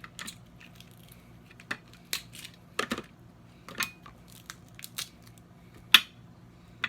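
Snow crab leg shells being cracked and snapped open: a series of irregular sharp cracks and crunches, the loudest about six seconds in.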